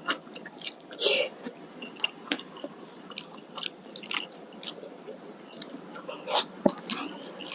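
Close-miked chewing and biting of food: irregular sharp, wet mouth clicks and crunches, with louder bites about a second in and again near the end.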